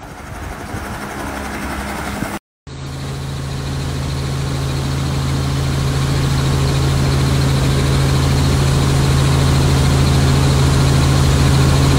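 Light helicopter's engine and rotor running: a short stretch of noise growing louder, then, after a cut about two and a half seconds in, the steady drone of the helicopter in flight as heard from inside the cabin, with a strong low hum.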